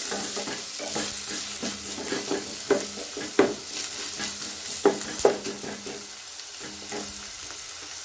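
Chopped onion, green peas and capsicum sizzling in hot oil in a pan as they are stirred and sautéed, the stirring spoon scraping and knocking against the pan, with a few louder ringing knocks around the middle.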